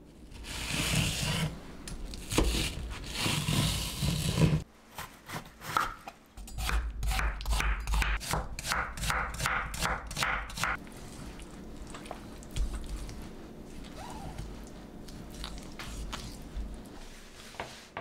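Kitchen knife chopping an onion on a wooden cutting board: a run of quick, even cuts, about four a second, lasting roughly four seconds. Before it, a few seconds of scraping and rubbing.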